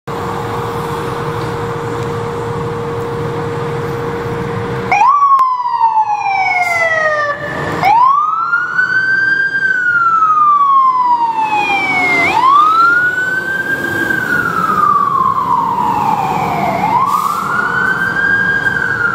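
Fire engine pulling out on a call: for the first five seconds its engine runs steadily with a held hum. Then its siren comes on and wails in long cycles, each swooping up quickly and sliding slowly down, about every four to five seconds.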